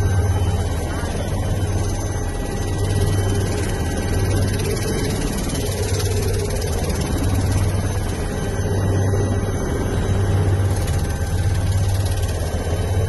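Helicopter turbine and rotor noise heard from inside the cabin: a loud, steady low drone.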